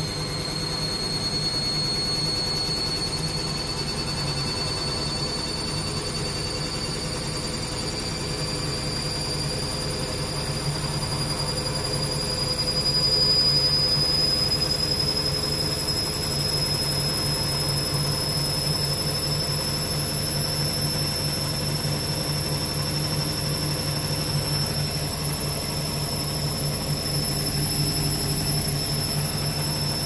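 Hoover front-loading washing machine on an interim spin of about 700 rpm with an unbalanced load: a steady low hum under a motor whine that rises slowly in pitch, briefly louder about halfway through.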